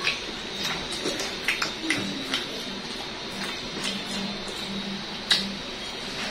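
Close-miked eating sounds: bites into crispy fried chicken and chewing, heard as irregular sharp clicks and crackles, the loudest a little after five seconds.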